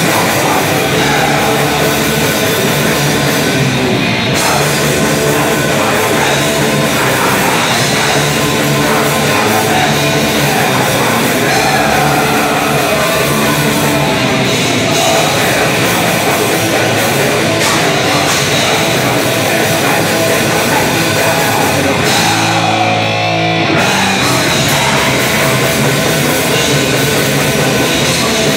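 Live heavy metal band playing loud, with distorted electric guitars, drums and vocals. About three-quarters of the way through, the cymbals and highs drop out for under two seconds while low notes hold, then the full band comes back in.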